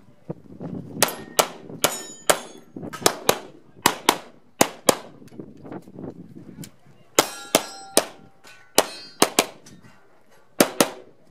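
Glock 17 9mm pistol firing a rapid string of shots, mostly in quick pairs with short pauses between groups. After a few of the shots a metallic ring hangs on, typical of hits on steel targets.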